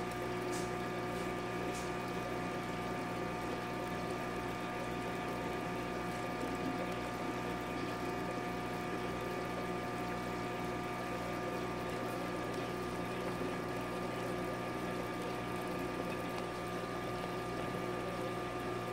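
Aquarium water pump running with flowing water: a steady hum of several constant tones over a soft wash of water.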